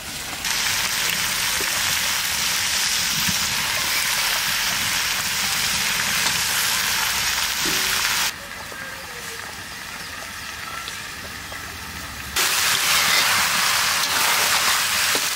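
Chicken, onions and cut potatoes sizzling as they fry in a wok. The sizzle comes in loud about half a second in, drops to a softer hiss about halfway through, and comes back loud near the end.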